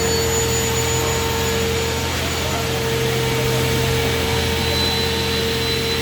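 Computer beam saw running with a steady machine drone and a steady whine over it; the low hum shifts slightly a little past halfway.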